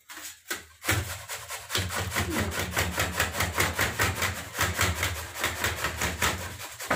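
A head of cauliflower being grated on a metal box grater standing in a steel plate: quick, even scraping strokes that start about a second in and keep going.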